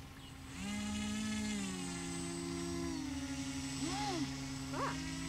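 Electric motors of two radio-controlled model boats whining at once. One holds a steady pitch while the other rises about half a second in, then drops in two steps as its throttle changes. A few short chirps sound near the end.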